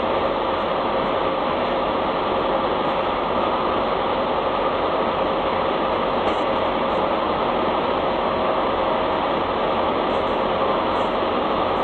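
Semi truck's diesel engine idling: a steady, unbroken drone with a constant hum.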